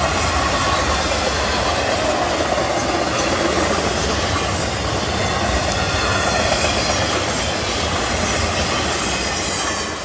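Intermodal freight cars carrying highway trailers rolling past, with a steady rumble and clatter of steel wheels on the rails. The sound starts to fall off at the very end as the last car goes by.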